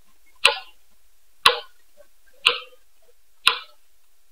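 Steady ticking, one sharp tick a second, four ticks in all, like a clock.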